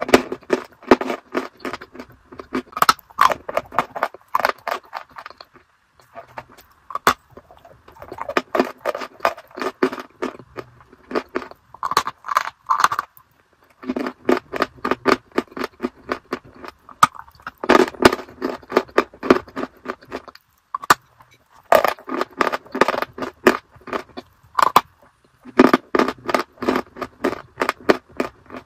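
Close-miked crunching as a dry, crumbly white block is bitten and chewed: dense runs of sharp crackles a few seconds long, broken by short pauses between bites, about five runs in all.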